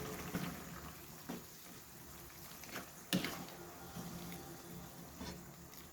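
Faint running water, with a few light knocks and a sharp click about three seconds in.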